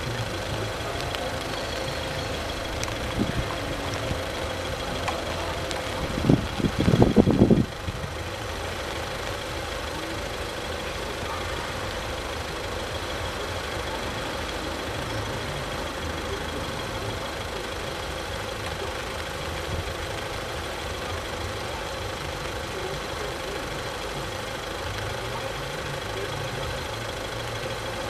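Steady engine hum of cars idling in a queue. About six seconds in, a loud burst of noise lasts under two seconds.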